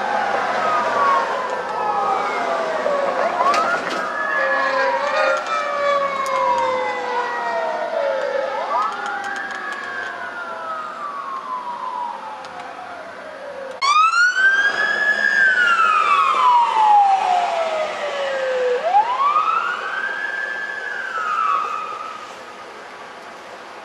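Several emergency vehicle sirens wailing at once, their pitches rising and falling out of step. About 14 seconds in, a louder, nearer siren starts suddenly and wails up and down twice before fading near the end.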